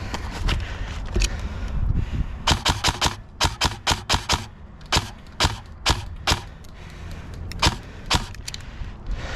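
Airsoft rifle firing rapid single shots: a quick string of about ten sharp cracks around the middle, then single shots about half a second apart, the last near the end.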